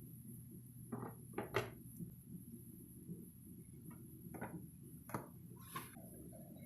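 Light, irregular handling taps and knocks: about seven short clicks, two close together about a second and a half in and the rest scattered later, over a faint steady hum.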